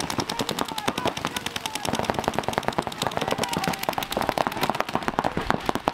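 Paintball markers firing in rapid, continuous strings, several guns shooting at once.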